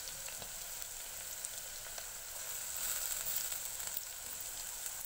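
Chopped onions and green chillies frying in oil in a pot on a low flame, a steady gentle sizzle.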